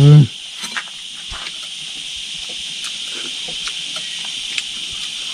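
Steady high-pitched drone of insects, with a brief vocal sound at the very start and a few faint clicks.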